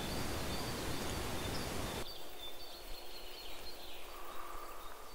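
Open-air background noise: a steady, even hiss that drops off abruptly about two seconds in, leaving a quieter background with faint high chirps.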